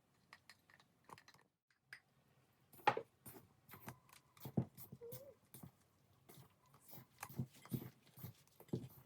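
Irregular knocks, taps and clicks of hands and utensils working bread dough in a bowl, loudest about three seconds in, with a brief high whine about five seconds in.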